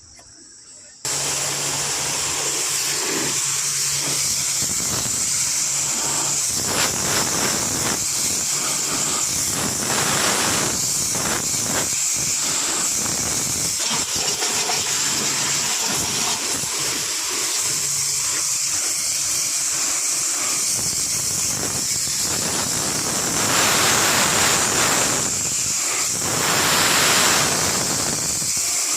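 A steady, loud hissing spray, a pressurised jet of the kind used to clean an air conditioner, starting about a second in and swelling louder twice near the end.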